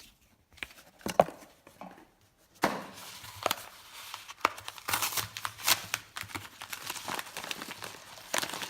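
Packing material crinkling and rustling as it is handled and pulled from a shipping box, with sharp little clicks throughout. A few light taps at first, then steady crinkling from about two and a half seconds in.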